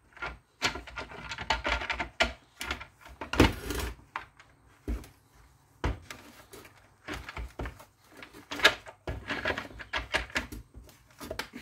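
Irregular clicks, knocks and rattles of circular saw parts and housing pieces being handled and fitted together during reassembly.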